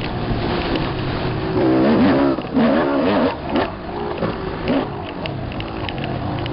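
Dirt bike engine revving up and down as the throttle is worked, its pitch rising and falling several times, loudest in the middle stretch. Heard from an onboard camera, with wind and bumps buffeting the microphone.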